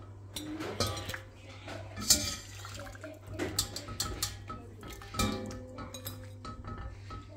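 Wire skimmer clinking against a stainless steel pot and a ceramic plate as boiled chicken legs are lifted out of the broth, with broth dripping back into the pot. Irregular sharp clinks, the loudest about two seconds in and about five seconds in.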